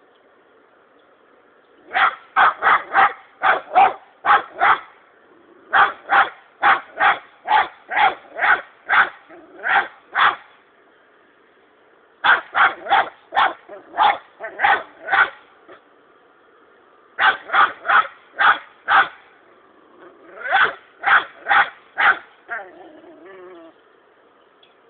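A six-month-old German hunting terrier (Jagdterrier) puppy bay-barking at a hedgehog it has found: sharp barks about two a second, in five runs of five to ten barks with short pauses between them. This is the steady bay barking a hunting dog gives to hold game at bay.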